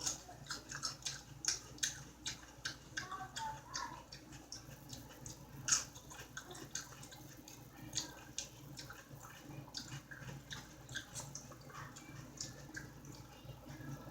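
Close-miked wet mouth noises of a person chewing food: irregular small smacks and clicks, several a second, with one louder smack about six seconds in.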